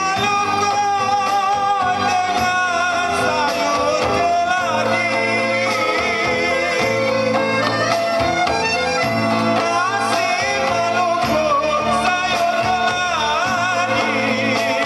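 A man singing a Malay song into a microphone over a karaoke backing track, his voice wavering up and down on held notes.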